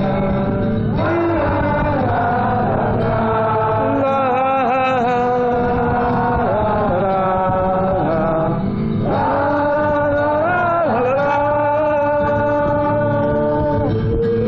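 Live male voice singing long, wavering held notes over strummed acoustic guitar, captured from within the audience; the voice pauses briefly about nine seconds in, then comes back in.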